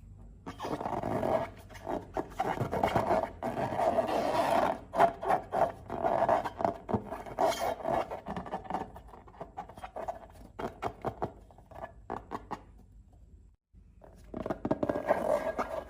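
Slime being worked by hand or tool: scraping and rubbing with many small sticky clicks and crackles. It breaks off abruptly near the end and starts again.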